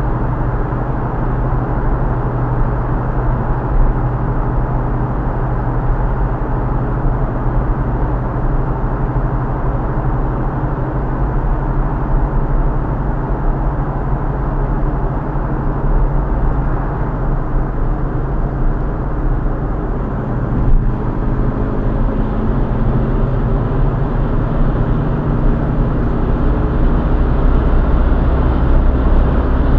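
Inside a car on the motorway: steady tyre and road noise with a low engine hum. From about two-thirds of the way through, the hum climbs slowly in pitch and the low rumble grows as the car speeds up from about 80 to 100 km/h.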